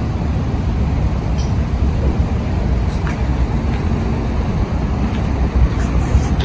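Steady low rumble of road traffic in the background, with no distinct events.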